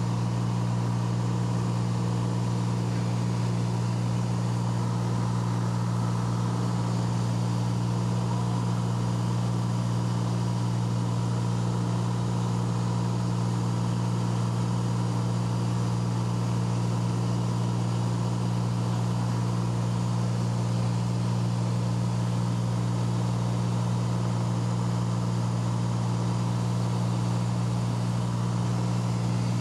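Light aircraft's piston engine and propeller droning at a steady low pitch in cruise flight, heard from inside the cabin.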